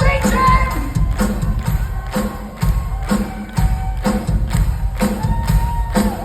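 Rock band playing live at full volume, drums striking a steady beat about twice a second under a pitched melody line that holds one long note about two-thirds of the way through.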